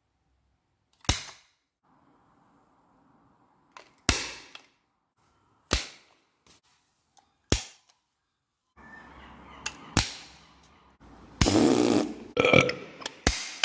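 Break-glass fire alarm call points being pushed in, the glass pane snapping each time: about five sharp cracks a couple of seconds apart, then a louder, longer crunching stretch near the end with another snap. No alarm follows.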